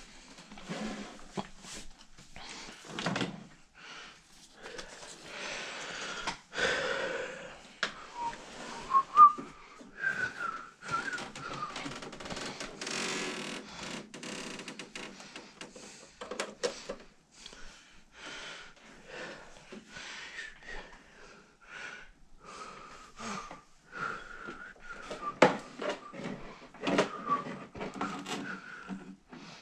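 Clicks, knocks and rustles of plugging cables into a desktop computer, with short wavering whistled notes on and off.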